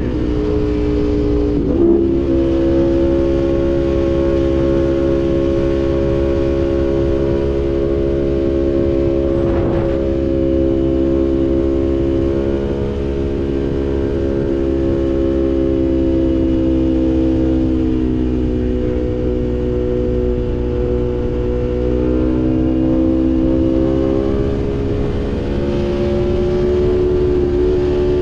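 Aprilia Tuono V4 motorcycle's V4 engine pulling steadily at road speed, heard from the rider's seat over a low wind rush. The note breaks briefly about two seconds in, sags slightly in pitch past the middle and rises again near the end.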